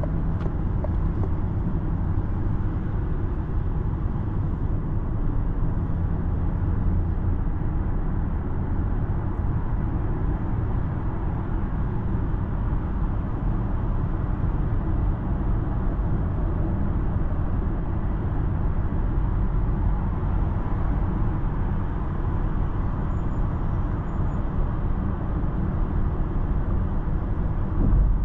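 Steady low rumble of road and tyre noise inside the cabin of a Citroen C5 X plug-in hybrid cruising at highway speed. A brief low thump comes near the end.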